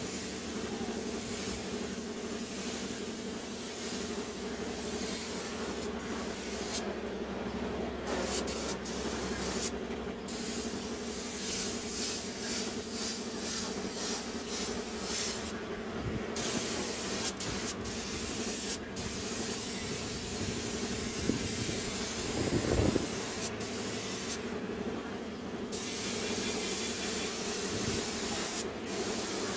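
Compressed-air paint spray gun hissing as paint is sprayed onto a tractor's body, in long runs that stop briefly several times. A steady low hum runs underneath.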